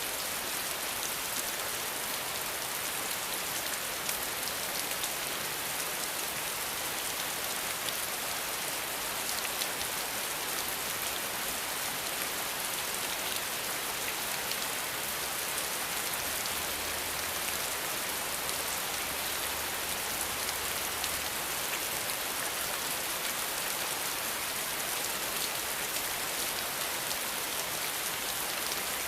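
Steady rain falling, an even hiss with many small drop patters, constant in strength.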